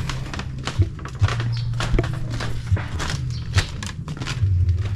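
Footsteps on a bamboo walkway: irregular clicks and knocks from the slats, several a second, over a steady low rumble.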